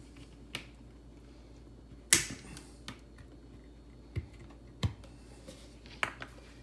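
Scattered sharp plastic clicks and snaps, about six of them, as the cap of a plastic sesame-oil jug is worked open by hand; the loudest snap comes about two seconds in.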